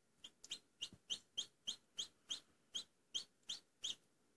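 A hatching Black Australorp × Barred Rock chick peeping as it works out of its shell: a run of about a dozen short, high cheeps, roughly three a second.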